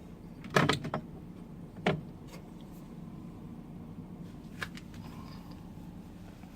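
Jars and containers being handled on refrigerator shelves: a clattering knock about half a second in, another short knock near two seconds, and a light click near the middle, over a steady low hum.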